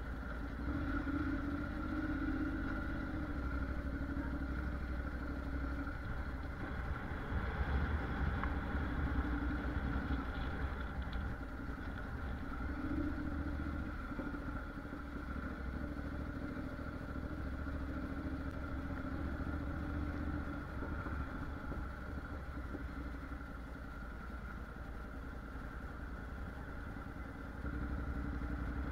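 Honda NC750X motorcycle's 745 cc parallel-twin engine running at low, steady speed, its note rising and easing slightly a few times, with a continuous low rumble from riding over cobblestones.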